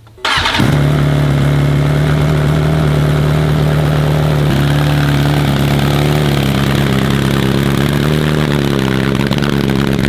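A BMW S1000RR's inline-four engine fires up about a quarter second in and settles into a steady idle through an Arrow titanium exhaust with its baffle fitted, edging up in pitch a few times.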